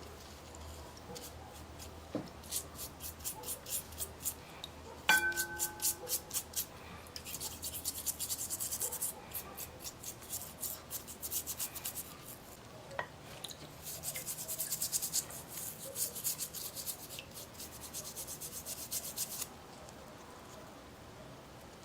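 Rhythmic back-and-forth rubbing or scrubbing strokes on a metal medal, several a second, in runs with short pauses. There is one sharp ringing metallic clink about five seconds in.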